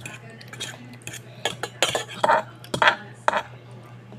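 A spoon scraping and clinking against the inside of a pot while scooping out the last bits of food: about six sharp strokes, the loudest in the middle.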